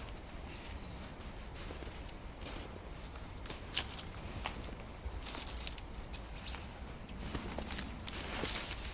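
Touring skis moving over snow: irregular crunching and scraping strides.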